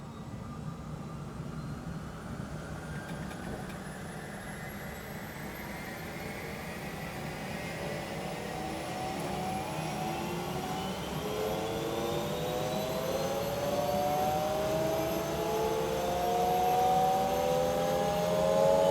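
Bell 212 helicopter's twin turbine engines spooling up during start, heard from inside the cabin: several whining tones climb steadily in pitch and the sound grows louder throughout, over a steady low hum.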